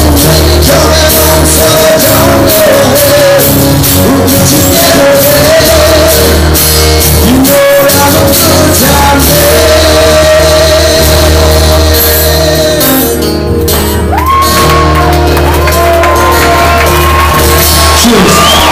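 Rock band playing live: acoustic guitar, bass and drums with singing and shouting voices, loud and continuous. The band thins briefly about two-thirds of the way through, then sliding high notes come in.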